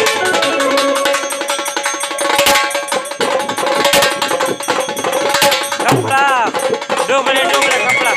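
Live devotional music: a drum struck in quick sharp strokes over a steady held tone, with a voice gliding up and down in pitch in the second half.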